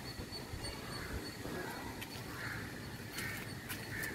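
A bird calling repeatedly, short harsh calls about once a second, over a steady low rumble, with a few sharp clicks near the end.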